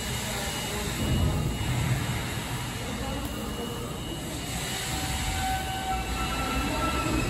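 New York City subway train running through an underground station, a steady rumble growing louder, with thin high whines setting in over the last couple of seconds.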